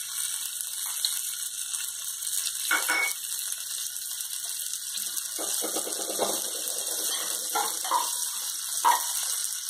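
Oil sizzling steadily under semolina batter frying in a nonstick pan, a constant high hiss, with a soft knock about three seconds in and another near the end.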